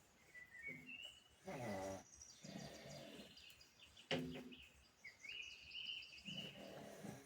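Pug snoring in several short, low breaths about a second apart. Birds chirp in the background, and a sharp click comes about four seconds in.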